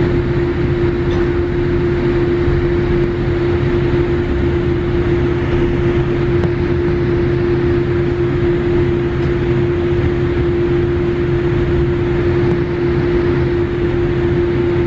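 Airliner cabin noise while taxiing after landing: jet engines at idle and the cabin air system giving a steady hum and rumble, with one constant droning tone throughout.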